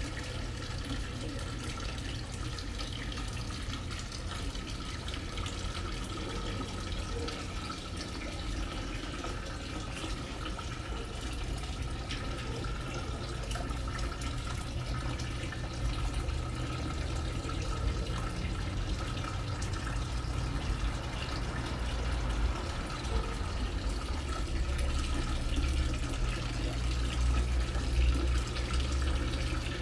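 Water from a stone wall fountain trickling steadily into its basin. A low rumble grows stronger in the second half.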